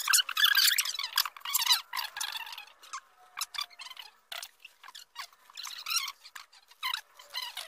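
Crinkling and crackling in short, irregular bursts as a crunchy Jack in the Box taco is handled in its paper sleeve and eaten. The bursts are densest in the first couple of seconds and thin out after that.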